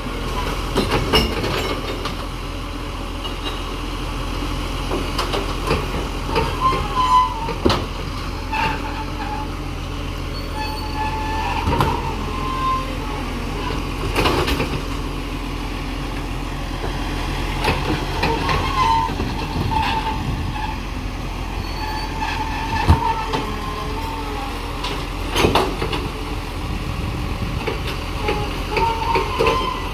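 Side-loader rubbish truck running while its hydraulic arm lifts wheelie bins and tips recycling into the hopper: a steady engine hum under a series of sharp knocks and clatters every few seconds, with short squeaks from the arm.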